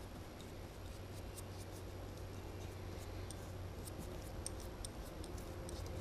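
Faint scratchy clicks and dabs of a small paintbrush working wet stain onto a turned oak ball, over a low steady hum.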